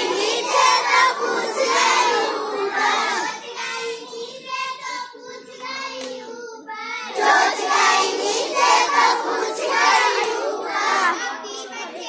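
Group of young children singing and chanting a Hindi action rhyme together in unison. The voices thin out to a quieter stretch around the middle, then the whole group comes back in loudly.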